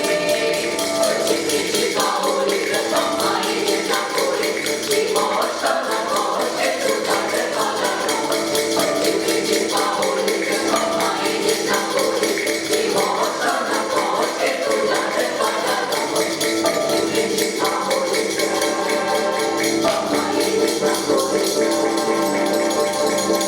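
Choir singing with a tambourine keeping a steady, fast rhythm over the accompaniment.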